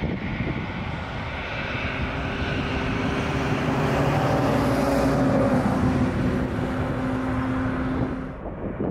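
Boeing 747-400 four-engine jetliner at takeoff thrust as it rotates and climbs out. It makes a steady, loud jet rush with a few low engine tones under it, growing loudest about four to six seconds in. Shortly before the end the sound cuts abruptly to the quieter noise of another jet on its takeoff roll.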